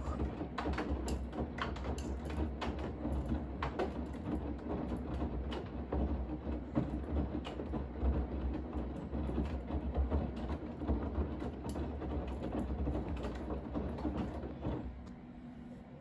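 Bosch front-loading washing machine in the wash phase of a 40 °C easy-care cycle, its drum turning laundry through soapy water: a low rumble with irregular sloshing and splashing. It goes quieter near the end.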